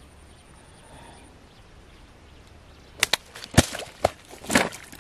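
Quiet background, then from about three seconds in a quick run of sharp slaps and knocks, about half a dozen, the loudest a little after the first.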